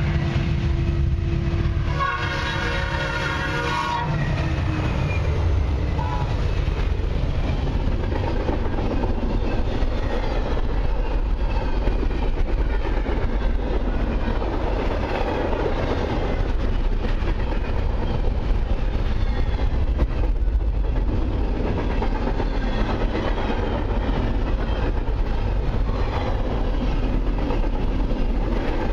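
Diesel locomotive air horn sounding on an approaching CN freight train, two blasts ending about four seconds in. Then the lead locomotives pass with a deep engine rumble, followed by a long string of double-stack intermodal container cars rolling by with steady wheel rumble and clatter on the rails.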